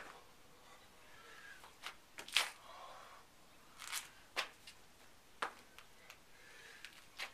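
Hands and sneakers landing and scuffing on a concrete patio during burpees: a string of short, sharp slaps and scrapes, about six in all, a second or two apart.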